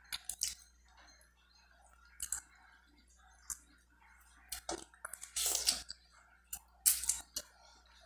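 Close-up mouth sounds of a person eating chicken from a bowl of chicken soup with her fingers: wet lip smacks, sucking at the fingers and chewing, in short separate bursts with quiet gaps between.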